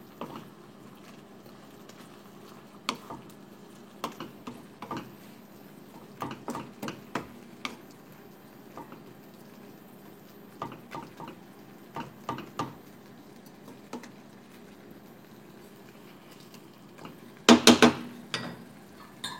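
A cooking utensil stirring chicken in a simmering cream sauce, scraping and knocking against the pan in scattered strokes. Near the end comes a louder quick run of knocks.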